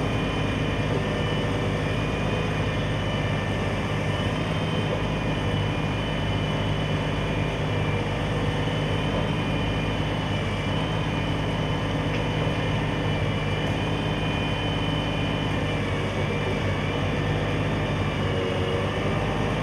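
An engine running steadily at an even speed, a constant low drone with a faint higher whine over it.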